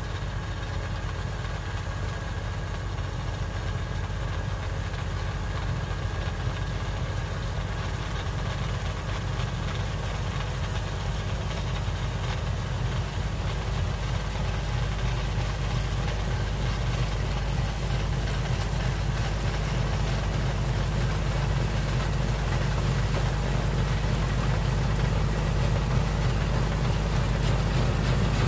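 Kubota L2501 compact tractor's three-cylinder diesel engine running steadily under load, driving a PTO-powered rear snowblower as it throws snow. It grows steadily louder as the tractor comes closer.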